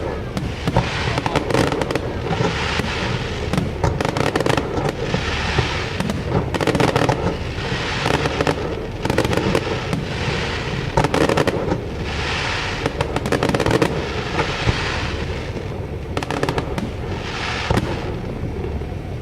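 Fireworks display: aerial shells bursting one after another in quick succession, sharp bangs over a continuous crackling rumble.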